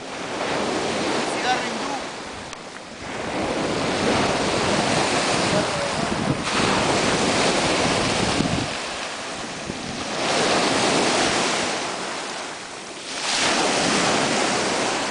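Small waves breaking and washing up a pebble shore, the surf swelling and easing several times.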